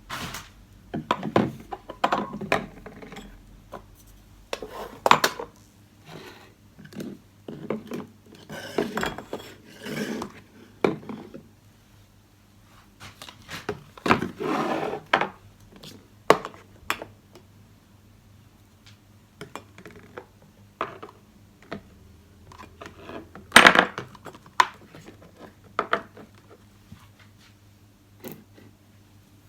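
Household objects being handled and set down: irregular clinks, knocks and rubbing, with a few louder clatters scattered through, the loudest about twenty-four seconds in.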